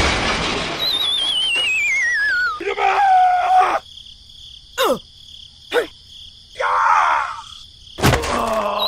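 A warbling whistle-like tone gliding steadily downward in pitch, then a held tone, two quick falling swoops about a second apart, and a short rustly burst. The warbling fall starts again near the end.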